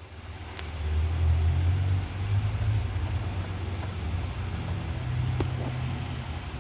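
A low, uneven engine-like rumble with a few faint clicks.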